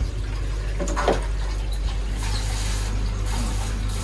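Hand-held bidet sprayer shooting a strong jet of water into a stainless-steel toilet bowl, the hiss of the spray starting about two seconds in. A short clunk about a second in, over a steady low hum.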